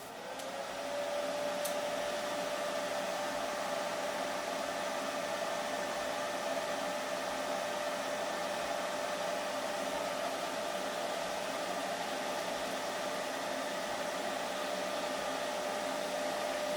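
An electric motor spins up over about a second, then runs at a steady pitch with a hiss of moving air.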